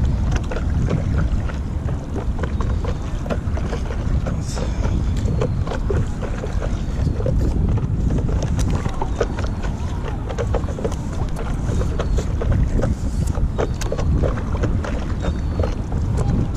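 Wind rumbling on the microphone, with frequent small splashes and drips of water from stand-up paddle strokes on the dock water.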